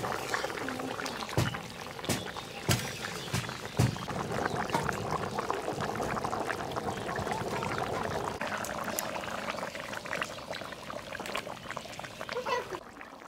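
Catfish curry cooking in a pan: steady dense bubbling and sizzling, with a few sharp knocks in the first four seconds. It drops away just before the end.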